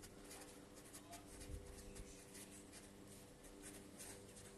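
Faint scratching of a felt-tip pen writing on a sheet of paper, in short irregular strokes, over a faint steady hum.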